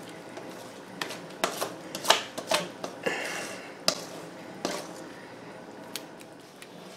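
A utensil scraping and knocking against a stainless steel mixing bowl as sticky bread dough is scraped out onto flour: a series of irregular clicks and knocks, with a short scrape about three seconds in.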